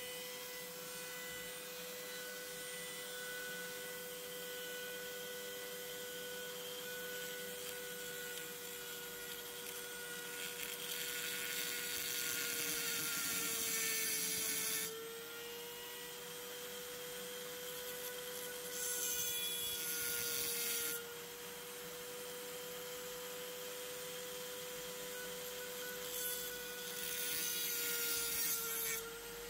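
Rotary tool (Dremel) running at speed with a steady whine, its 0.7 mm Proxxon cut-off disc grinding through the metal rails of an N-scale Peco Code 80 turnout. There are three louder grinding cuts, about ten seconds in, around nineteen seconds and near the end, and the motor's pitch sags slightly as each cut loads it.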